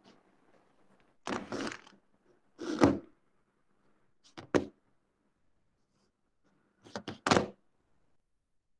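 Four separate thuds and knocks, a few seconds apart: one at about a second and a half, one near three seconds, a quick double knock near the middle, and a double knock near the end.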